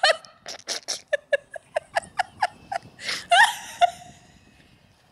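Person laughing: a run of quick, short laughs about five a second, swelling into a louder burst of laughter about three seconds in, then dying away.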